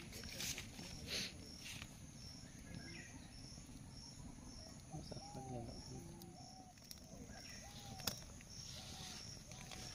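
Quiet rural outdoor ambience: a high chirp repeating about twice a second and a few short calls near the middle, over a low rumble. The open wood fire gives a few sharp crackles, the loudest about eight seconds in.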